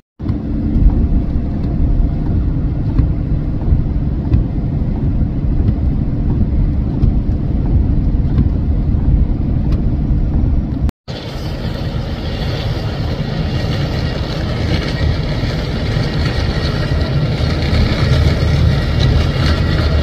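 Steady low rumble of vehicles driving on a snow-packed highway. About eleven seconds in it breaks off suddenly and a different steady mechanical noise takes over, with a thin high whine in it.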